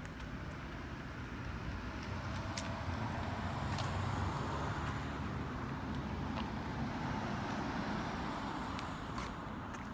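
A car going past: road noise swells to its loudest about four seconds in, then slowly fades. A few light clicks sound over it.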